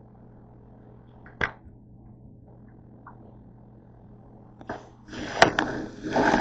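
Loud rustling and knocking from the camera being handled and picked up, starting about five seconds in, over a low steady hum. There is a single sharp click earlier, about a second and a half in.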